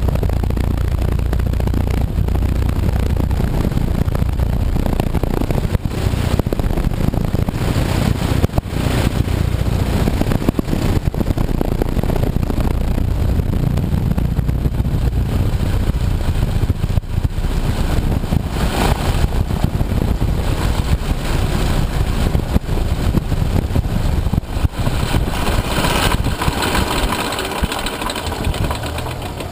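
Biplane's engine and propeller running at low power as the aircraft taxis on the ground, a steady loud drone that gets quieter over the last few seconds.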